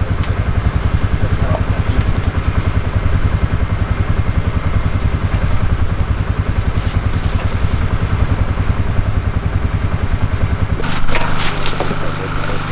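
Small engine idling close by with a rapid, even low putter. About eleven seconds in it changes to a steadier hum with sharp clicks and cracks.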